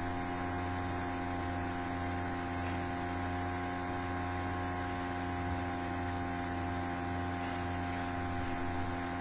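Steady electrical mains hum: several constant tones over a light hiss, with no change.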